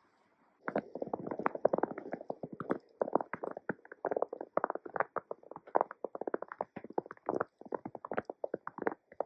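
Footsteps crunching through fresh snow, starting about a second in and going on with brief pauses.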